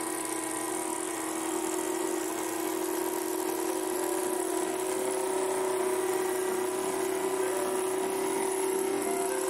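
Small benchtop power saw running steadily with a constant hum, its thin blade cutting through 6 mm plywood with a taped paper template.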